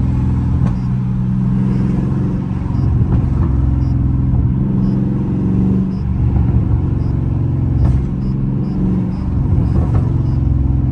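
Dodge Charger Scat Pack's 6.4-litre HEMI V8 running while the car is driven, heard from inside the cabin as a steady low engine drone with road rumble.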